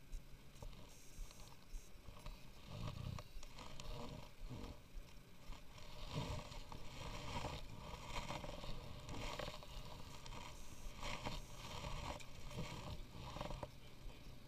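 Kayak paddle strokes: irregular splashing and scraping about once a second as the paddle dips and the boat is paddled along.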